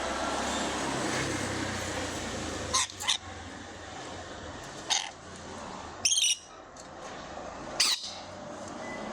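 Lovebirds chirping: about five short, sharp high calls, a quick pair, then single calls, one a little past the middle slightly longer and harsher, over a steady low background hiss.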